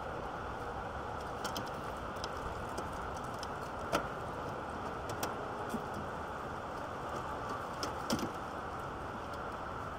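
Scattered light clicks and knocks of hands and parts being worked into place inside a car's engine bay, the sharpest about four seconds in and two close together near eight seconds, over a steady background hiss.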